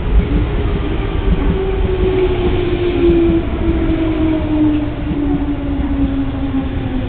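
JR East 205 series electric train pulling into a station and braking: a steady rumble of wheels on the rails under a whine that falls slowly in pitch as the train slows.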